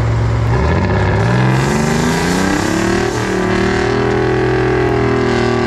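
Heavy diesel engine revving up, its pitch climbing for about three seconds and then holding steady at high revs.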